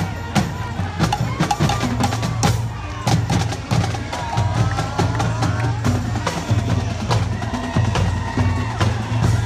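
Marching band playing as it passes: a drumline of snare and bass drums beating a steady rhythm, with sousaphones holding low notes and saxophones playing a melody over it.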